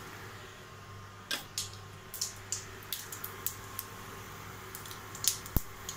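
Tempering spices, mustard seeds among them, spluttering in hot oil in a steel kadai: irregular sharp pops and crackles from about a second in, several a second at times, over a low steady hum.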